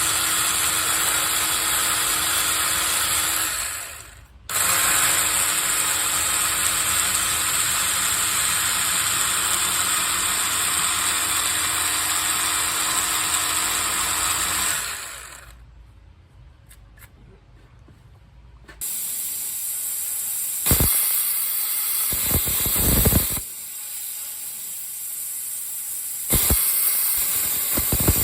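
Plasma cutter cutting a steel plate: a steady, loud hiss with a high whine and a low hum, in two long cuts, the first about four seconds and the second about ten. After a short pause, a rougher, uneven hiss with a few knocks takes over in the second half.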